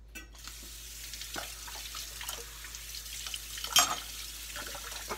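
Kitchen tap running into a sink: a steady hiss of water that comes on suddenly just after the start, with a few light clicks and one sharp clink a little before the four-second mark.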